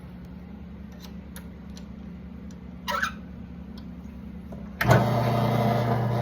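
A few light clicks and a short knock, then the electric motor of a key-cutting machine switches on near the end and runs with a steady hum.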